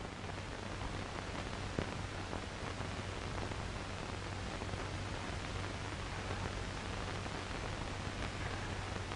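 Steady hiss and low hum of an old optical film soundtrack, with a faint click about two seconds in.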